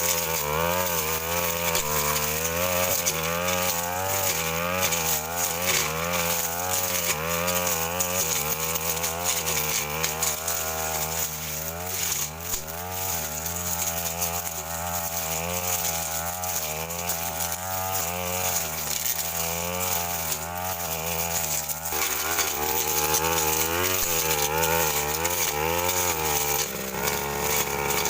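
Stihl FR 3001 backpack brush cutter running under load, its engine speed rising and falling every second or so as the metal blade cuts through woody scrub, with brief knocks of the blade striking stems.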